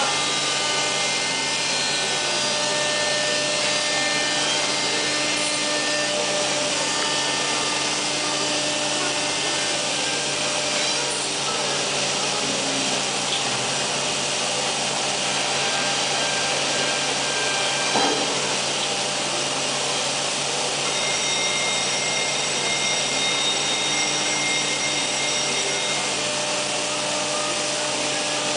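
Biesse Rover 322 CNC router working: a steady machine noise with several held tones over a rushing hiss. A single sharp knock comes about eighteen seconds in.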